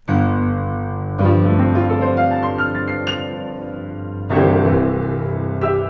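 Piano playing slow, full chords that ring on, with new chords struck about a second in and again just past four seconds, and a high note near three seconds.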